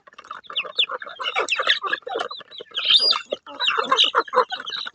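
Several chickens clucking and squawking at once as they feed and peck at each other, in a busy run of short overlapping calls, with a louder, higher squawk about three seconds in.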